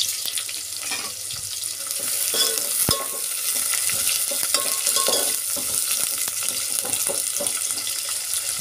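Sliced onions sizzling in hot oil in a metal pot as they are stirred, the ladle scraping against the pot. There is a sharp knock about three seconds in.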